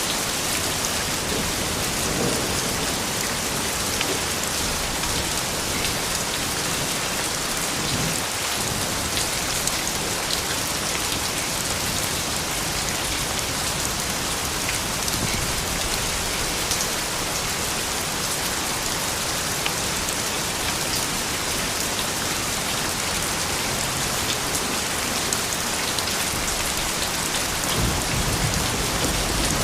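Steady soft rain falling, an even hiss dotted with the ticks of individual drops; a low rumble comes in near the end.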